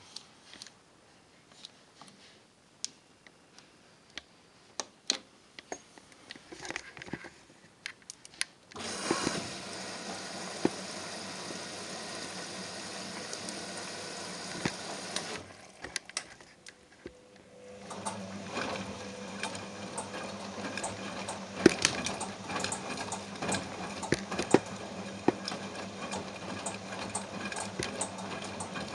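Front-loading washing machine starting a quick wash: scattered clicks as the program dial is turned, then water filling the drum with a steady rush from about nine seconds in until about fifteen seconds in. From about eighteen seconds in the drum turns with a steady motor hum while the wet load sloshes and knocks.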